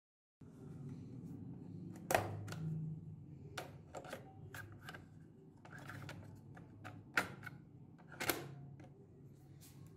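Plastic clicks and knocks from a Playskool toy cassette recorder as a cassette is fitted into its tape door and the door is pushed shut, with a few sharper clicks about two, seven and eight seconds in, over a faint low hum.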